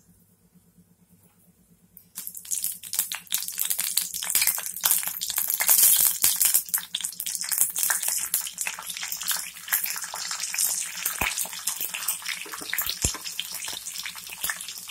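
Near silence for about two seconds, then hot oil in a kadai sizzles and crackles as green chillies fry with mustard seeds, urad dal and cumin for a tempering, with many sharp pops through the sizzle.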